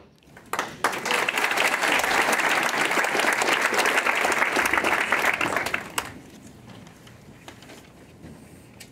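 Audience applauding, a dense patter of many hands clapping that starts about half a second in and dies away about six seconds in.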